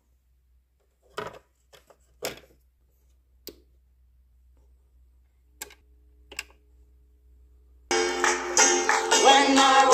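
Clicks and knocks of a vinyl record being set on a Crosley suitcase turntable and its tonearm cued, then, about eight seconds in, music starts playing from the record.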